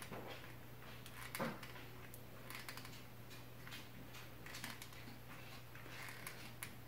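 Faint scattered clicks and taps from working a hot glue gun's trigger and handling the wand against the counter, with one slightly louder tick about a second and a half in, over a low steady hum.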